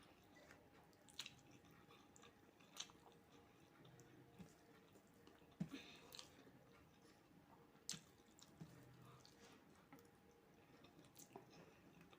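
Faint chewing and mouth sounds of someone eating fried rice and chicken curry, with a few short, sharp clicks spread through.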